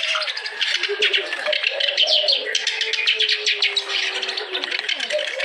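Kerak basi, a reed warbler, singing a fast, unbroken chattering song of rapid high chirps and harsher notes, with lower drawn-out notes underneath.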